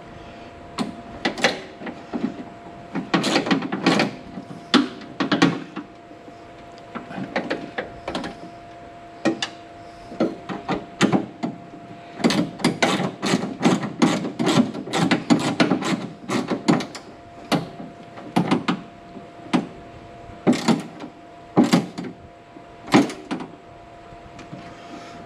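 Irregular metallic clicks and knocks of hand tools and parts working inside a car door while the door handle and its linkage are fitted and bolted up. They come in clusters, densest in a quick run of clicks in the middle.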